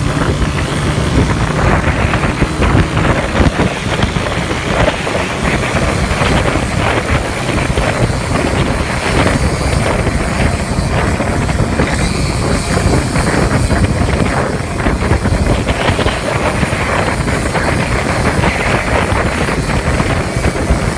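Qingqi motorcycle rickshaw engine running, heard under heavy wind buffeting on the microphone.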